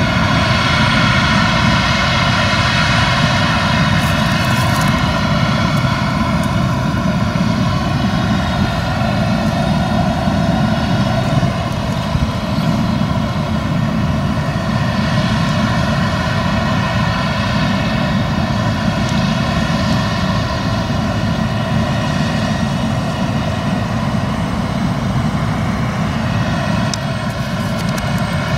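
Claas Lexion 770 combine harvester running steadily under load while harvesting: a continuous engine drone with a steady high whine over it.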